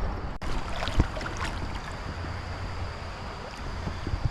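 Steady rush of creek water with wind buffeting the microphone, and a few small knocks, the sharpest about a second in.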